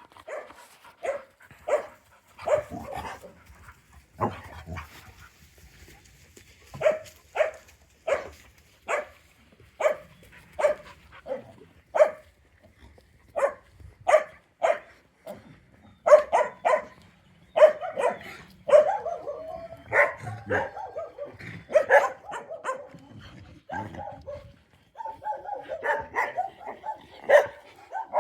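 Shelter dogs barking: single barks about once a second for the first half, then denser, overlapping barking in the second half.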